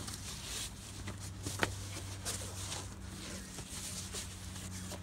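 Rustling and scuffing of canvas tent fabric and a roll mat as someone crawls inside the tent laying out bedding, with a sharp click about a second and a half in, over a faint steady low hum.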